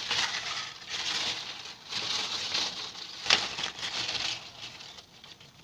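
Rustling and handling noise close to the microphone, coming in uneven surges, with one sharp click about three seconds in.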